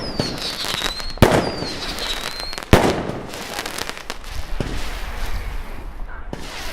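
Fireworks going off: two loud bangs about a second and a half apart, with a high wavering whistle over the first two and a half seconds, then lighter crackling and a few smaller pops.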